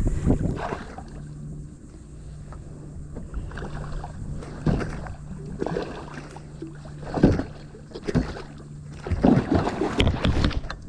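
Water splashing and knocking against a kayak hull in irregular bursts as a hooked bull shark pup thrashes beside the kayak.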